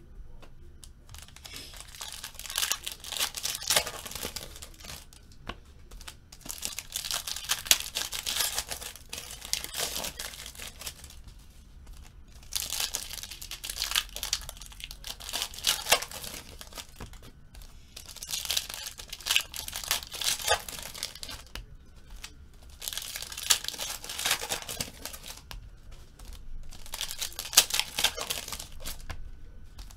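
Foil wrappers of trading-card packs crinkling and tearing as they are pulled open by hand. The crackling comes in repeated spells of a few seconds with short pauses between.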